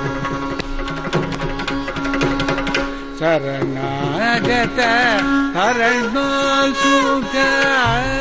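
Carnatic music in raga Reethigowla: mridangam and ghatam strokes over a steady tambura drone. About three seconds in, a melody line with wide, sweeping pitch slides (gamakas) comes in over the drone and percussion.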